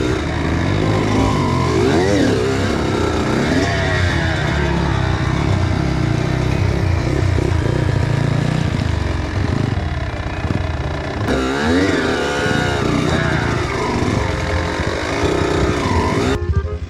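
Kawasaki KX85 two-stroke dirt bike engine revving, its pitch rising and falling several times as the throttle is opened and closed.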